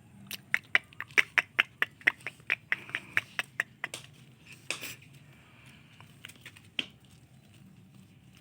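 A small dog yapping in a quick, even run of short, sharp barks, about four a second. One longer bark about halfway through, then two single yaps.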